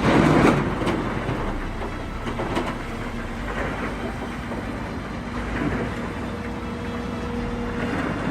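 A heavy machine's engine running steadily, with a louder noisy burst in the first second.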